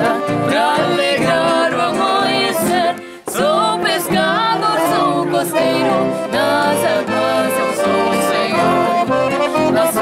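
Gaúcho folk music on a Scandalli piano accordion, with an acoustic guitar at first. The music breaks off briefly about three seconds in, then the accordion carries on with a young woman singing.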